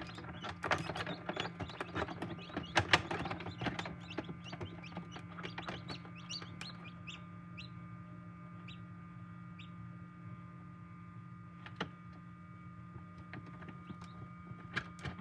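Newly hatched chicks peeping inside an incubator: many short, high chirps, busiest in the first few seconds and thinning out after, over a steady low hum.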